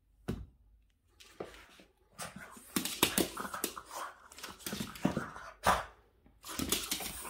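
A Boston terrier scuffling with a window-cleaning squeegee: a short sharp knock, then a rapid, irregular run of the dog's noisy breathing and scuffling sounds against the squeegee and floor.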